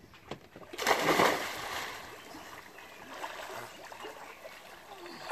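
A person diving headfirst into the sea: one sudden splash about a second in that fades over the next second, then softer sloshing of water.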